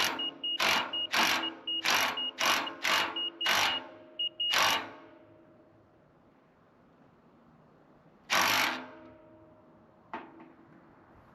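A run of loud ringing knocks, about two a second, that stops about five seconds in, followed by one more loud knock later. Under the first knocks is a rapid high beeping, typical of a self-leveling laser level's out-of-level warning while the sawmill is being leveled.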